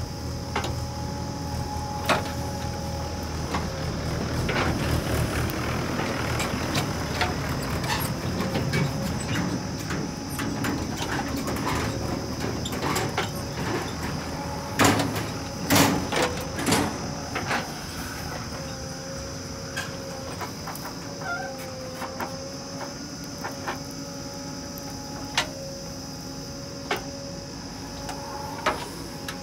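JCB 3DX backhoe loader's diesel engine running under load as its front bucket scrapes into loose soil and lifts it, with rattling clods and a handful of sharp clunks about halfway through.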